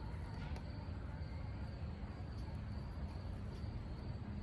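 Insects trilling steadily at a high pitch over a low rumble.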